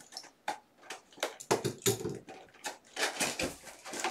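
A cardboard hockey card hobby box being handled and opened by hand: irregular crinkles, rustles and small clicks from its packaging and flaps, coming in clusters.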